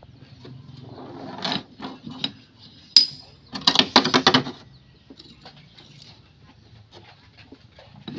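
Steel rocker arms and springs clinking and rattling on an engine's rocker shaft as they are worked onto it by hand: a short scrape about a second and a half in, a single sharp ringing clink about three seconds in, then a quick run of rattling metal clicks lasting about a second.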